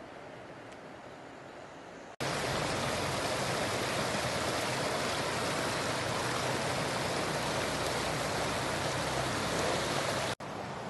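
Rushing water of a shallow rocky stream, a steady loud rush that starts abruptly about two seconds in after a fainter hiss, and cuts off abruptly near the end.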